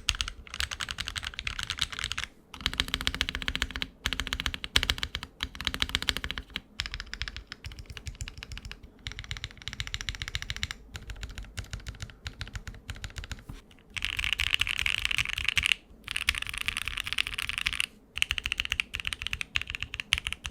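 Typing on a budget custom MW65 mechanical keyboard, foam-modded and gasket-mounted, with PBT Cherry-profile keycaps: rapid runs of keystroke clicks broken by a few short pauses.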